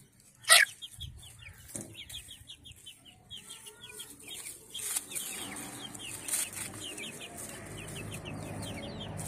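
A flock of chickens feeding: a steady run of quick, high peeping chirps with low clucking, and one loud, sharp squawk about half a second in. From about halfway a rustling noise builds under the calls.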